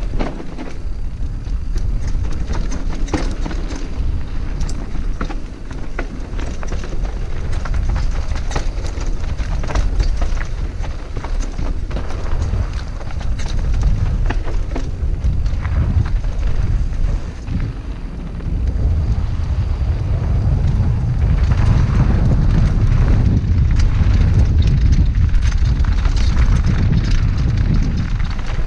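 Wind rushing over the microphone and the rattle and crunch of a Scott Genius full-suspension mountain bike riding fast downhill over dirt and loose rock, with frequent sharp clicks and knocks. It gets louder in the last third as the trail turns rocky.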